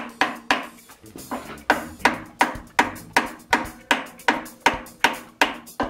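Background music with a steady percussive beat of about three struck notes a second.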